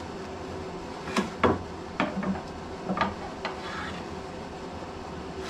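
No. 8 jointer hand plane with a corrugated sole shaving along a board's edge: several sharp wooden scrapes over a low hiss, the loudest a little after one second, then at about two and three seconds.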